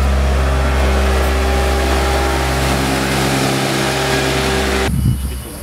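Diesel engine of a Bomag tandem asphalt roller running steadily as the roller drives past close by. The sound cuts off suddenly near the end.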